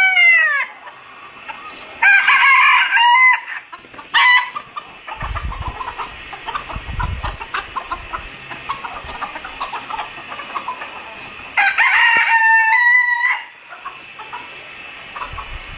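Chickens calling: loud, held rooster crows and squawks near the start, about two seconds in and again about twelve seconds in, each over a second long. Softer clucking runs between them.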